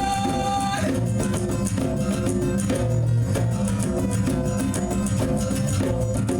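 Rock band playing live, with guitar, bass and drums. The singer's held last note of the line ends about a second in, and the band plays on without vocals.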